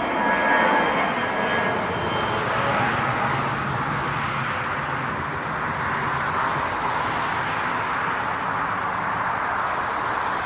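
Jet airliner's engines roaring steadily, with a high whine that fades out over the first couple of seconds.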